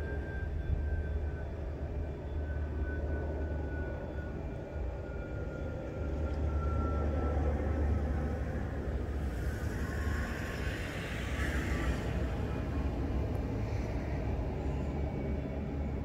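Steady low rumble of outdoor background noise. A faint tone slowly falls in pitch over the first several seconds, and a hiss swells and fades around ten to twelve seconds in.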